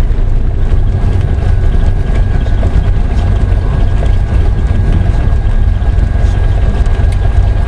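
Cessna 172 Skyhawk cabin noise with the engine throttled back to idle on a power-off landing: a loud, steady low rumble of idling engine, propeller and airflow. A faint, thin, steady high tone sits above it from about two seconds in.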